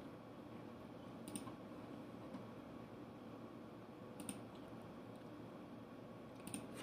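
Three short, sharp computer clicks a few seconds apart, each a quick doubled click, over faint steady room hiss.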